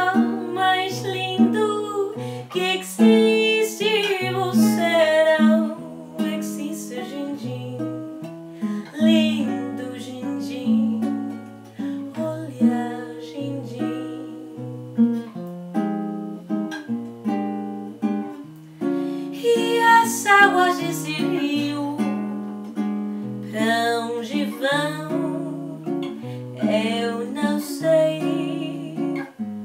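Acoustic guitar played with plucked fingerstyle chords and bass notes, accompanying a woman singing a bossa nova ballad; her sung phrases come and go over the steady guitar.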